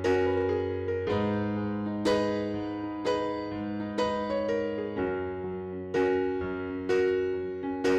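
Background music: a gentle piano or electric piano melody, a chord or note struck about once a second and left to ring.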